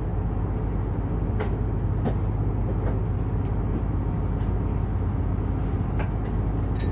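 Excursion boat's engine running steadily, a low hum, with a few faint clicks.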